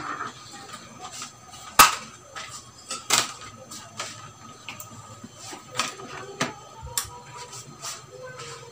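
Scattered sharp clicks and knocks from the power cord and plug being handled and connected, the loudest about two seconds in. Near the end a faint steady tone starts as the variable frequency drive powers up.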